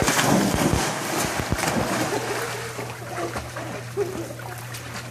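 Big splash as a person comes off a water slide into a swimming pool, then water sloshing and splashing that slowly dies down.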